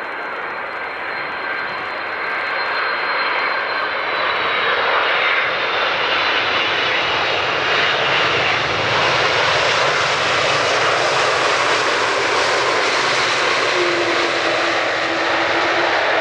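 Boeing 747's four jet engines whining and rumbling as the airliner lands, growing louder over the first several seconds and then staying loud through touchdown and rollout on a wet runway. A high whine drifts slightly down in pitch, and a lower steady hum comes in near the end.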